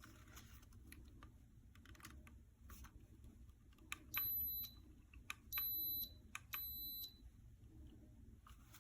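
Three short electronic beeps, each about half a second long and each just after a small button click, from a hair crimper's control as its button is pressed, with light clicking and handling of the tool around them.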